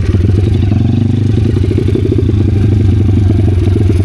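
Kayo pitbike's single-cylinder four-stroke engine running at low, steady revs as the bike rolls to a stop. The rider says it still isn't running well: the mixture is off, the idle is too high and it is slow to take throttle.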